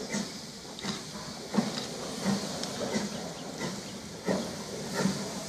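Steam locomotive chuffing at a slow, even beat, about one chuff every 0.7 s, with a steady hiss of steam between the beats.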